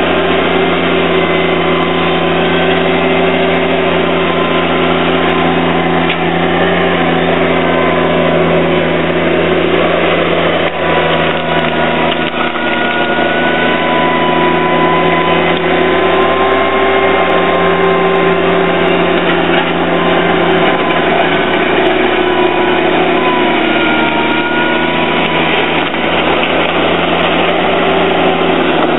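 John Deere 322 garden tractor's three-cylinder engine running steadily under load as the tractor pushes gravel with its front blade. Its pitch dips slightly a few times as the load changes.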